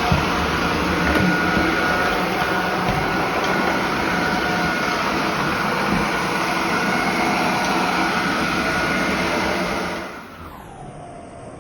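Robot vacuum cleaner running with a steady whirring hum. About ten seconds in, the sound drops sharply in level and slides down in pitch.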